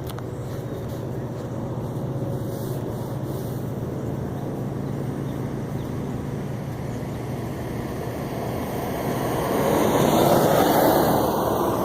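A steady low hum, joined about nine seconds in by a rushing noise that swells, peaks and begins to fade near the end.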